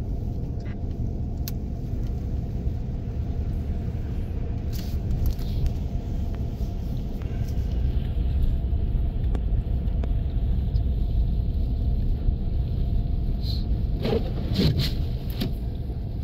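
Steady low rumble of a car driving slowly on a snowy road, heard from inside the cabin: engine and tyre noise. Near the end a brief higher sound glides up and down.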